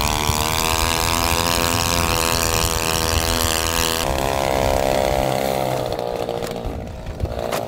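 Small air-cooled gas outboard motor, the cheap kind sold on Amazon, running steadily at speed as it pushes a jon boat, with a buzzy tone like a chainsaw. Its pitch drops a little about four seconds in, and it grows fainter near the end. The motor only reaches about half throttle, which the owner puts down to a faulty throttle cable.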